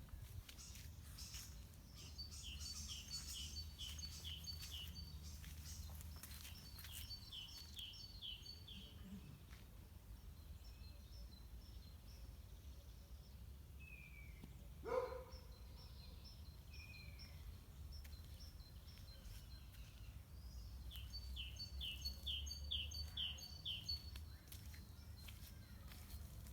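A songbird singing: three times it gives a short run of quick, repeated high notes, over a low steady outdoor rumble. About halfway through there is one brief, louder rising sound.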